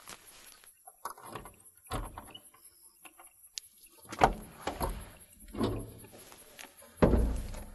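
Car boot lid being unlatched and opened: a sharp click about three and a half seconds in, followed by a series of knocks and thuds, the heaviest near the end.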